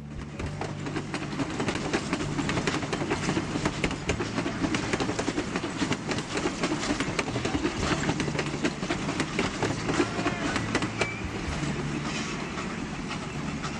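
Serra Verde Express passenger train running along the track, heard from inside a carriage: a steady low rumble with many sharp clicks from the wheels passing over the rails.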